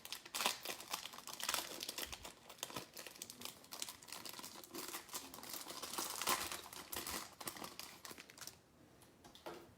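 Trading-card hanger box packaging being torn open and handled, an irregular crinkling and crackling with small clicks. It dies down near the end.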